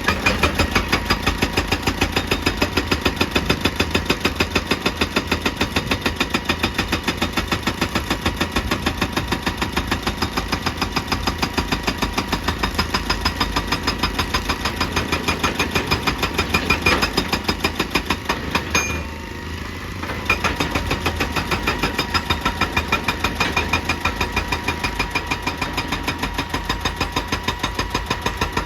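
Excavator-mounted hydraulic rock breaker hammering rock in rapid, evenly spaced blows over the running engine. It stops for about a second and a half a little past two-thirds through, then starts again.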